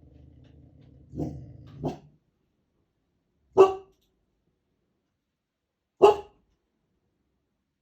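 A Cane Corso puppy growls low for about two seconds, its growl swelling twice, then gives two single loud barks about two and a half seconds apart. It is alarm barking at an unfamiliar noise.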